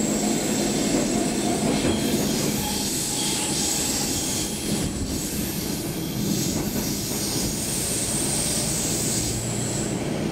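Stockholm Metro C6 train car running through a tunnel, heard from inside the car: a steady rumble of wheels on rail with a thin high whine above it that fades out near the end.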